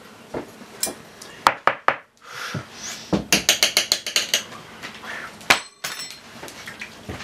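Hard objects knocking and clinking: a few separate sharp knocks, then a quick run of about eight taps in a second, then one loud clink with a brief high ring near the end.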